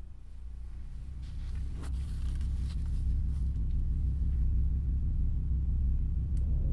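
A low, deep rumbling drone that starts abruptly and swells louder over the first few seconds, then holds steady, with a few faint clicks above it: an ominous sound-design rumble for a film.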